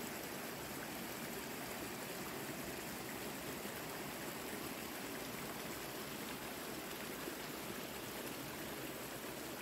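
Small forest stream tumbling over rocks: a steady rush of running water.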